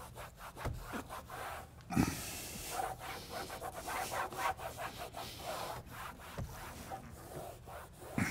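A cloth rubbing and scrubbing along a plastic door sill protector, smoothing the freshly applied film down onto the truck's door sill, in irregular strokes. A dull knock about two seconds in, and a smaller one later.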